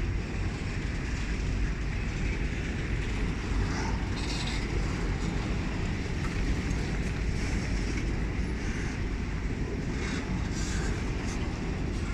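Freight train rolling through at the station: a steady low rumble of wheels on rail, with a few short higher-pitched squeaks or clatters.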